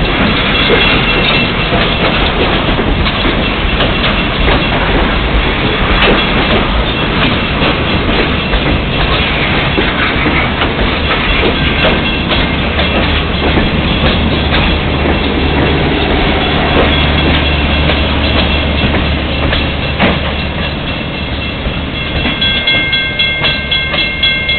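Diesel freight train passing close by: a GP38-2 locomotive's engine rumbles, then boxcar wheels clack over the rail joints in a dense run of clicks. Near the end, as the last car goes by, a grade-crossing bell comes through, ringing in regular strokes.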